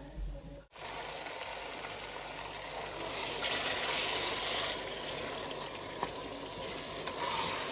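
Sliced onions and tomato paste frying in hot oil in a metal pot: a steady sizzle, stirred with a wooden spoon. The sizzle starts abruptly about a second in and grows louder for a stretch around the middle.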